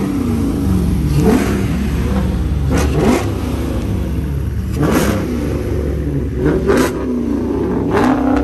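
A car engine being revved in quick throttle blips, over and over about every one to two seconds, each rising sharply in pitch and falling back to a rumbling idle.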